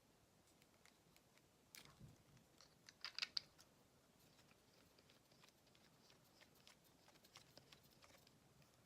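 Faint plastic clicks and handling of a GoPro camera being fastened onto a mini tripod grip, with a short cluster of sharper clicks about three seconds in.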